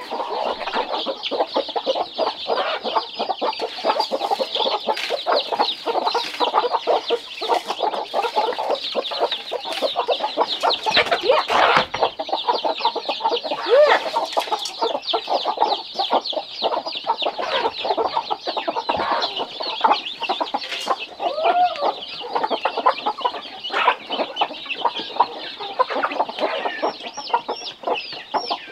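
A flock of chickens clucking and calling without a break, many birds' calls overlapping.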